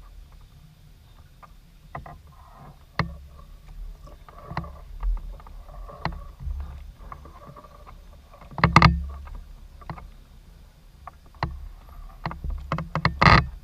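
Canoe being paddled: the paddle dipping and splashing in the water with scattered light knocks, and louder splashes about nine seconds in and near the end.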